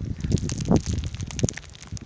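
Blizzard wind buffeting the phone's microphone in irregular low rumbling gusts, with crackling.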